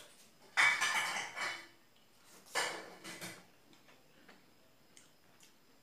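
Someone eating momo dumplings: two short noisy mouth sounds of about a second each, then a few faint clicks of chopsticks against a china plate.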